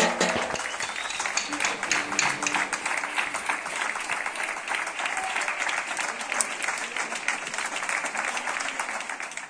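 Many people clapping from the surrounding apartment balconies, a dense, steady applause that starts to fade right at the end.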